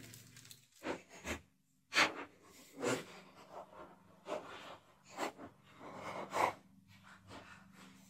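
Handling noises as a cardboard-framed furnace filter is fitted against a plastic box fan and strapped on with a bungee cord: scattered short rustles and knocks, roughly one a second.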